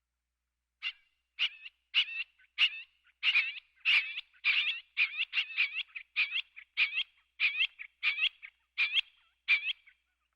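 Scaled quail calling: a steady series of short two-part calls, about three every two seconds, starting about a second in.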